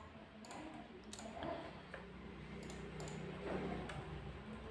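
Faint scattered clicks and light taps of small objects being handled on a desk, over a low steady hum.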